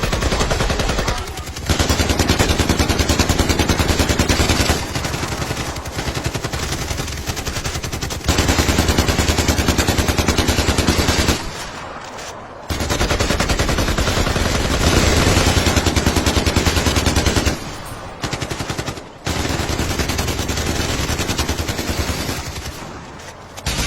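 Electronic toy gun's machine-gun sound effect: long bursts of rapid fire lasting a few seconds each, separated by short breaks.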